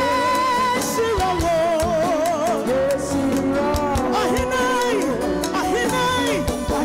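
Live gospel band playing: bass guitar, keyboard, drum kit and hand drums keep a steady beat while a lead voice sings long held and sliding notes with vibrato.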